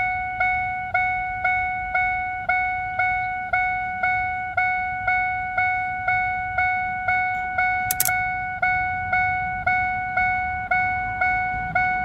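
Ford F-150 warning chime dinging steadily about twice a second, each ding ringing on into the next. This is the odd-sounding ding that comes with the wipers switched on, a fault the owner traces to something in the wiper circuit. A sharp click sounds about eight seconds in.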